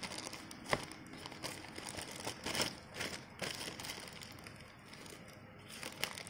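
Clear plastic bag crinkling and crackling as it is pulled off a small cardboard box, with one sharp click just under a second in.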